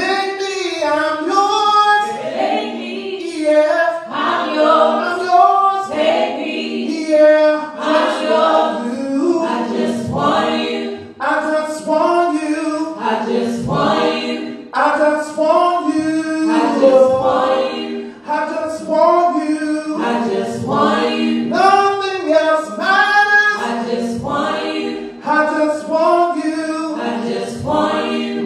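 A small group of worship singers singing a slow gospel worship song in harmony, without instruments, through microphones.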